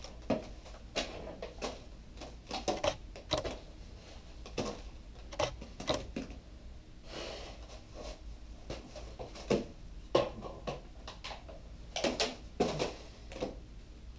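Irregular light clatters, taps and rustles of foil pie tins and pies being handled, with a few sharper knocks later on.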